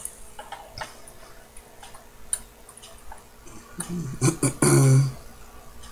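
Small scattered clicks of steel tweezers touching the parts of a watch movement, followed about four seconds in by a short murmured voice sound.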